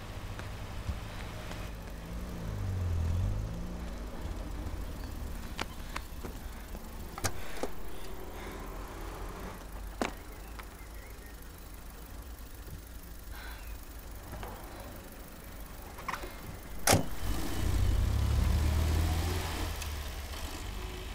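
Street traffic: a low car rumble swells as a car passes about two seconds in, and again near the end. A few sharp knocks come over it, the loudest a crack just before the second swell.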